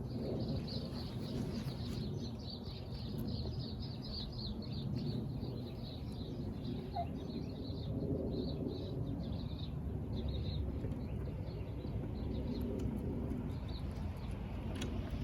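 Small birds chirping, many short rapid chirps overlapping, thinning out near the end, over a steady low outdoor rumble.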